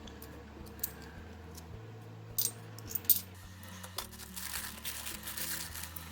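50p coins clinking and clicking as they are handled, with a few sharp clinks about two and a half and three seconds in and a longer patch of jingling near the end.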